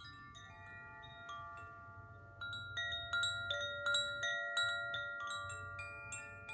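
Koshi chime being swung so that its clapper strikes the tuned rods, sweet overlapping ringing tones building up. The strikes come faster and louder about two and a half seconds in.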